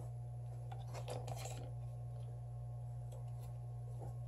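Faint rubbing, scraping and light clicks of fingers pressing double-sided adhesive tape onto a Galaxy S7 edge's metal midframe, over a steady low hum.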